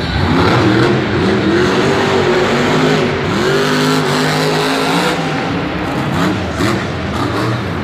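Grave Digger monster truck's supercharged V8 revving hard. The pitch rises and falls several times, climbing steeply about three seconds in and dropping back a couple of seconds later.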